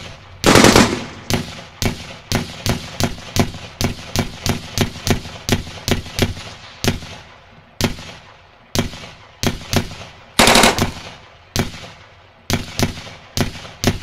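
Edited-in gunfire sound effect: a string of single shots, about two or three a second, with two louder, longer blasts, one about half a second in and another about ten seconds in.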